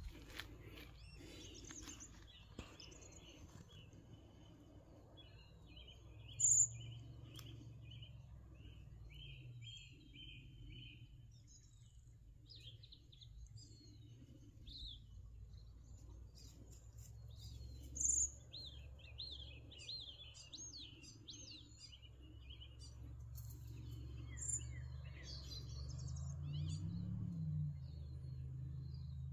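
Small birds chirping and twittering in several short trills and calls, with a sharp, high single note ringing out three times, louder than the rest. A low rumble runs underneath and swells briefly near the end.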